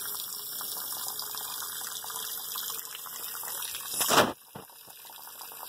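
Water hissing steadily as it drains out of a Goulds jet pump through the opened pressure-gauge port, purging the system for winterizing. About four seconds in there is a brief louder rush, and the flow is quieter after it.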